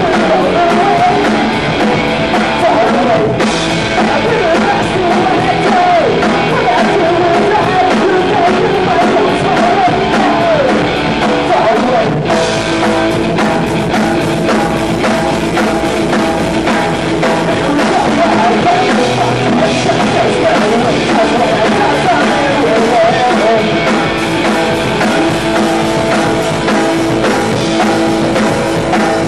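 Live punk rock band playing loud: electric guitar, drum kit and singing.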